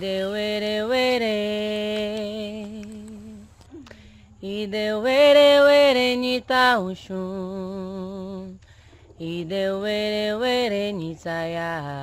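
A single voice singing a slow, chant-like melody in long held notes with a wavering vibrato, in several phrases with brief pauses between them.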